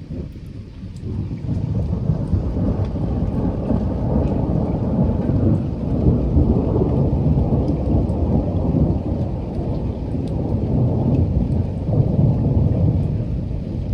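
Loud thunder from a thunderstorm: a low rumble that swells about a second and a half in and keeps rolling, over steady rain.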